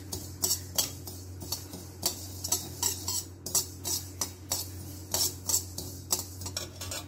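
Steel spoon scraping and clinking against a metal kadhai as mustard seeds are stirred while being dry-roasted, in even strokes about three a second, over a low steady hum.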